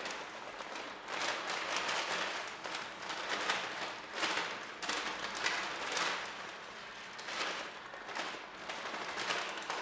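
Crisp shoestring potato sticks (batata palha) shaken out of a plastic bag onto a dish, landing with a dry crackling patter that comes in uneven surges.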